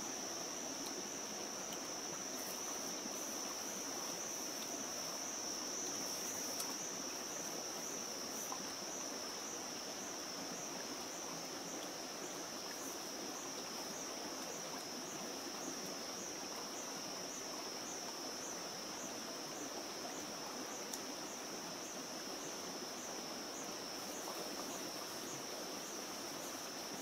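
Steady high-pitched insect song that takes on an even pulse, about one and a half beats a second, in the second half, over the rushing of a rocky stream.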